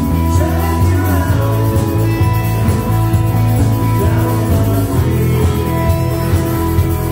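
Rock band playing live: electric guitar, bass guitar and drums, with a singer's voice over them.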